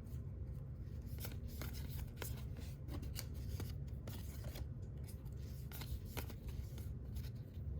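Baseball trading cards being flipped through in the hand, card sliding against card in an irregular run of short, crisp clicks, over a steady low hum.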